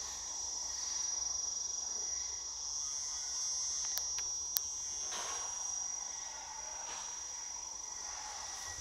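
Steady, high-pitched insect chorus, with two sharp clicks about four seconds in.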